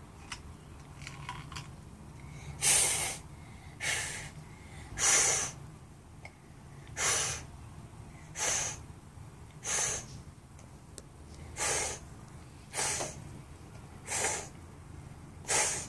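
A small child blowing short, breathy puffs of air through a soap-bubble wand, about ten puffs a second or two apart, starting a few seconds in.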